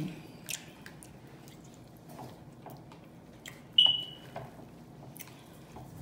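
Close-up chewing with scattered wet mouth smacks. About four seconds in comes one sharp, briefly ringing clink, a metal fork striking the plate.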